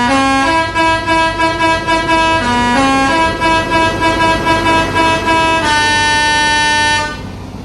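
Basuri telolet bus horn, a multi-tone melody horn, playing a tune: quick pulsing notes stepping up and down, then one long held chord that cuts off suddenly about seven seconds in.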